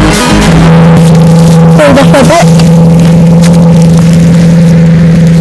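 Tractor engine running at steady revs while ploughing, a loud, constant drone that comes in about half a second in as music cuts off.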